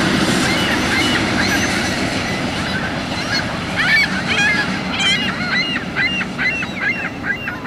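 Freight train of tank cars rolling past with a steady low rumble that slowly fades. From about four seconds in, birds call over it in quick succession, about three calls a second.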